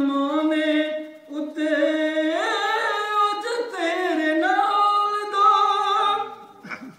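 A man singing a devotional Punjabi song in praise of Imam Hussain, unaccompanied, in long held notes that glide and waver in pitch. The singing breaks off briefly about a second in and again near the end.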